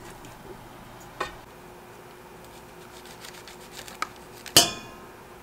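A few scattered knocks against a stainless steel pot as ingredients are put in. The loudest comes about four and a half seconds in, a sharp metal clank that rings briefly.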